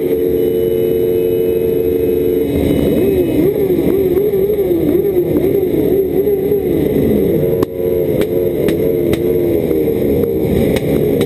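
Many sport motorcycle engines revving together, held at steady high revs at first and then blipped up and down over and over, with one rev falling away about seven seconds in.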